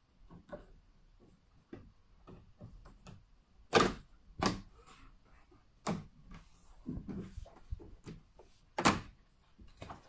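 Sharp knocks and clicks of a framed magnetic fly screen being handled against its window frame: four stronger knocks, the loudest about four and nine seconds in, among lighter clicks and rustling.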